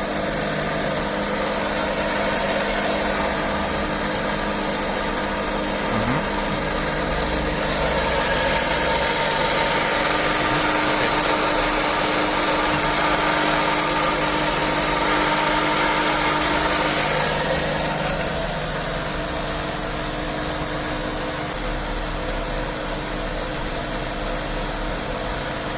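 MAHO MH 300 universal milling machine running with an axis moving at rapid traverse: a steady mechanical whine with several tones. It grows somewhat louder about eight seconds in and changes and eases off about eighteen seconds in.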